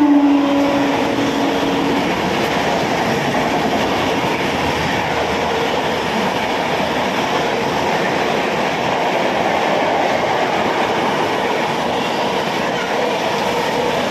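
An electric locomotive's horn, held as the locomotive passes beneath, drops in pitch and stops about two seconds in. A steady rush of passenger coaches rolling past on the rails follows.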